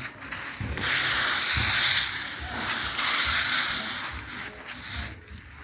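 Drying palay grains being stirred across a net, the grains sliding with a dry hissing rustle in two long passes. Footsteps thud underneath.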